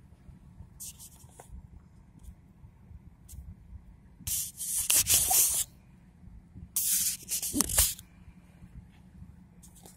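Low, steady rumble of a car driving, heard from inside the cabin, with two loud hissing rushes about four and seven seconds in and a fainter one near the start.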